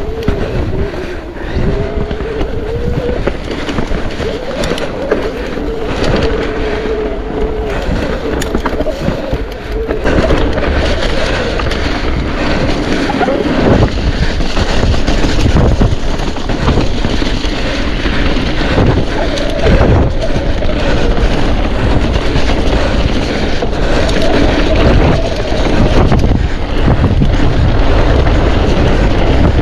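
Mountain bike riding fast over a rough trail: wind on the camera microphone, tyres rumbling over gravel, and many short knocks and rattles of the bike over bumps. A wavering hum runs through the first ten seconds, and the ride gets louder about ten seconds in.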